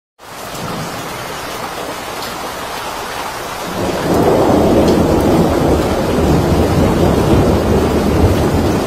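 Torrential rain pouring down in a thunderstorm. About four seconds in it grows louder, with a deep rumble underneath.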